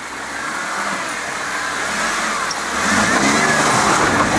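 Jeep engine revving under load as its tires spin and churn through a deep mud hole, growing louder, with the engine pitch climbing about three seconds in.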